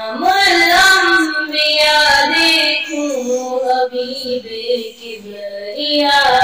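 A young girl singing an Urdu naat (devotional song in praise of the Prophet) into a microphone, in long held notes that glide between pitches.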